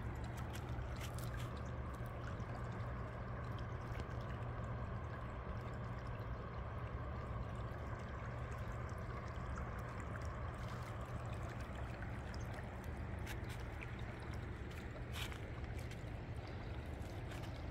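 The Kern River running low and shallow over rocks: a steady rush and trickle of flowing water, with a few brief faint ticks scattered through it.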